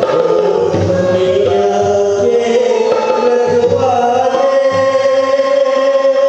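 Live music: harmonium and tabla playing together, the tabla striking steadily under long held notes, some of which glide in pitch as a voice sings along.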